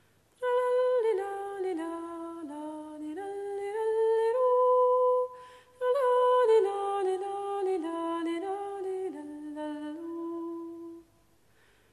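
A woman's voice humming a Scandinavian folk-song melody without words or accompaniment, in two long phrases of stepping notes with a short break between them.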